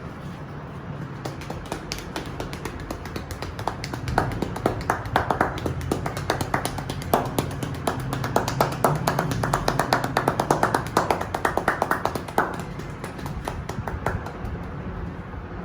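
Rapid percussive massage strokes: a barber's hands chopping and slapping on a client's head and back, several sharp taps a second. They build up to their loudest and densest in the middle and thin out near the end.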